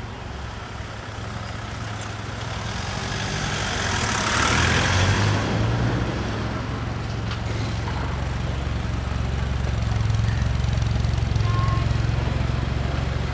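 Motor vehicle running: a low, steady engine hum with road noise, swelling into a louder rush about four to five seconds in.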